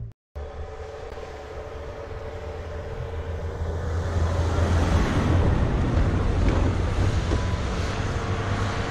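Pickup truck engine running hard under load as it climbs a snowy slope, its tyres churning through the snow. The noise grows louder over the first five seconds and stays strong after that.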